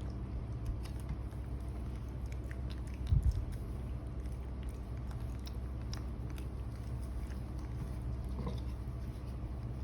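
Small scattered clicks and smacks of a pet baby monkey chewing, over a steady low hum, with a dull thump about three seconds in and a brief faint squeak near the end.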